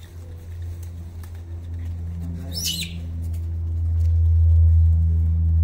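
A steady low droning hum that grows louder about four seconds in, with one brief high, wavering chirp about two and a half seconds in.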